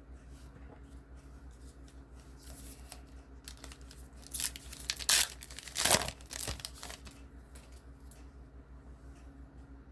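A baseball card pack's wrapper being crinkled and torn open, with a few sharp rips, the loudest near the middle. A steady low electrical hum runs underneath.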